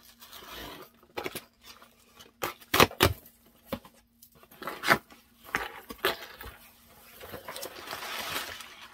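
Cardboard shipping box being opened by hand: a scatter of sharp knocks and taps on the box, then a longer stretch of tearing and rustling packaging near the end.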